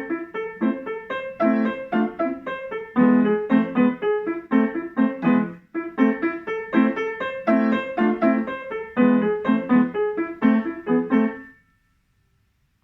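Solo grand piano playing a lively passage of quick, separate notes and chords, with the last notes dying away near the end as the piece finishes.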